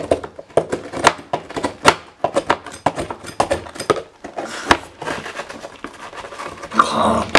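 A knife scraping and prying at a jam and cream sandwich biscuit on a cutting board: a run of irregular sharp clicks and scrapes, with a louder rasping stretch near the end as the biscuit comes apart.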